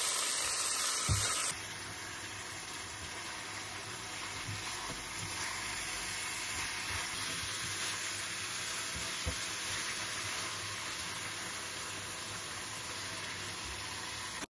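Steaks and sliced onions sizzling steadily as they fry in oil in a non-stick frying pan, with a few faint taps of a plastic spatula against the pan. The sizzle drops a little about one and a half seconds in.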